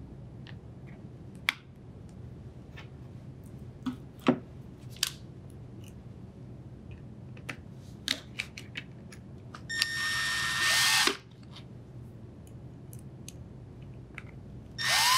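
Scattered light clicks and taps, then a drill driver runs twice, for about a second each: once about ten seconds in and again near the end, spinning up and down. It is driving the two Phillips screws that hold the condenser fan motor cover.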